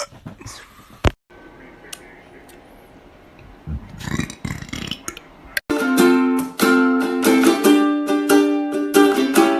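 A short, low burp about four seconds in, then loud plucked-string music with quickly changing notes from about six seconds on.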